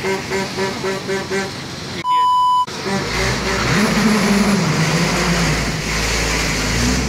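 Street traffic noise: a vehicle engine's deep rumble, its pitch rising and falling, over a general road din. Before it, a rhythmic music loop stops about a second and a half in, followed by a loud, steady beep tone lasting about half a second.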